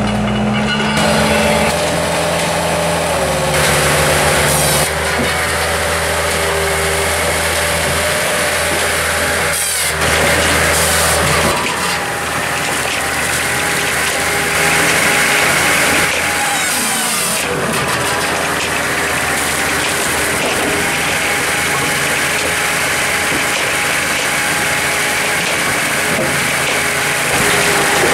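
Bell's Machining 4000C firewood processor at work: its engine runs steadily while hardwood logs are split and the split firewood drops out. The engine pitch shifts now and then.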